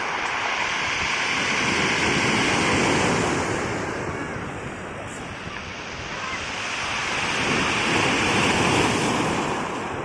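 Sea waves breaking and washing up the pebble beach at Qixingtan, twice swelling and then fading, the second wave peaking near the end.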